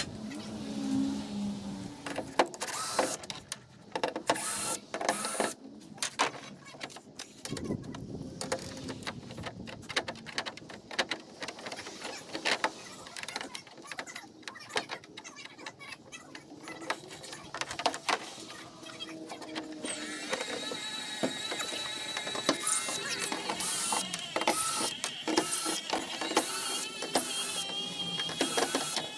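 Clicks and knocks of tools and plastic parts being handled at a pickup's tailgate for about twenty seconds, then a cordless drill running with a steady whine near the end as it works the screws of the tailgate cover.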